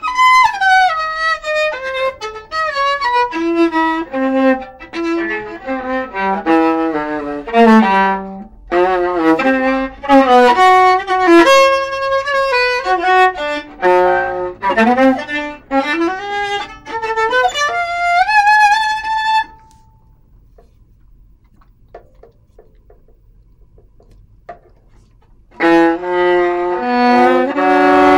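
Solo viola played with a bow: a single melody of connected notes climbing and falling. The playing stops about two-thirds of the way through for several seconds, with only a few faint taps, then starts again near the end.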